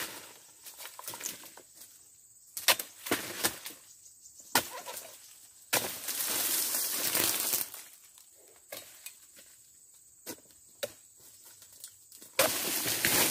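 A long-handled dodos chisel chopping into the tough frond bases of an oil palm: single sharp strikes, some a second or more apart, some in quick pairs. Two longer rustling crashes come about six seconds in and near the end.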